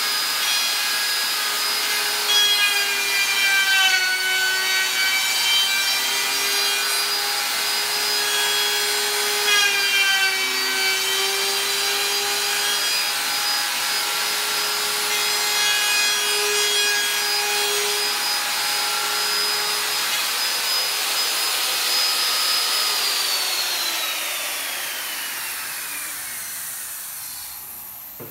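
Compact router cutting the edge of a high-density polyethylene cutting board: a steady high whine that dips in pitch twice as the bit bites into the plastic. Near the end the router is switched off and the whine falls away as the motor spins down.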